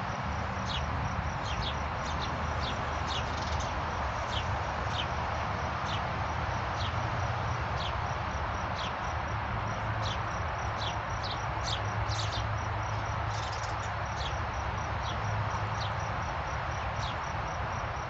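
Small songbirds giving short, sharp chirps that slide downward, one every half second to a second, irregularly. Behind them is a steady, evenly pulsed high insect trill and a constant outdoor background noise.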